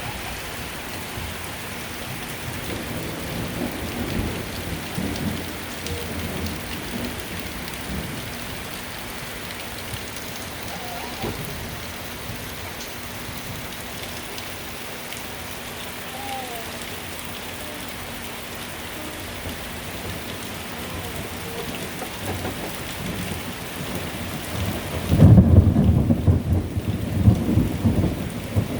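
Steady rain falling during a thunderstorm, with low thunder rumbling a few seconds in. Near the end a much louder, low rumble of thunder breaks in and goes on.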